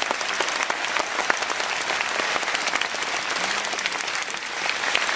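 Large audience applauding, dense and steady clapping.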